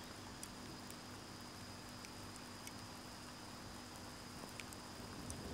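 Faint steady background hiss with a low hum and a thin high tone, broken by a few faint ticks.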